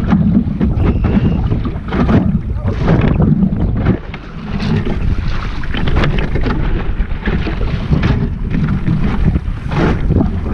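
Wind buffeting the microphone of a camera fixed in a small sailing dinghy, with water splashing and slapping against the hull in choppy water, coming in repeated surges.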